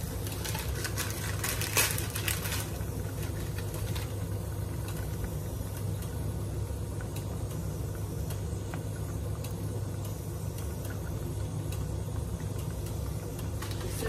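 Broth simmering in a wok under a steady low hum. A cluster of light clicks and scrapes comes between about half a second and two and a half seconds in, as a bundle of thin misua noodles goes into the broth against the wooden spoon.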